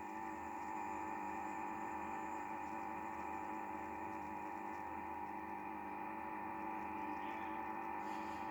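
Interference noise from the speaker of an Icom IC-7300 HF transceiver: a steady electrical buzz and hum made of several held tones. The owner has ruled out his own house by running the radio from a battery with the mains switched off, so the interference comes from an outside source.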